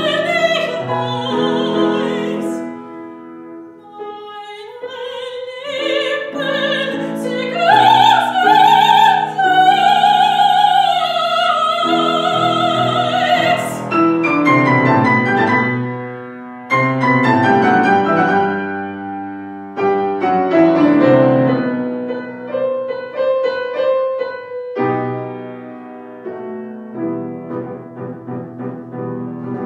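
Soprano singing an operetta aria in German to grand piano accompaniment, holding a long high note with wide vibrato near the middle. After that she stops and the piano plays on alone with sweeping rising figures.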